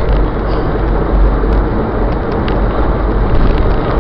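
Vehicle on the move: a steady, loud rumble of road and engine noise.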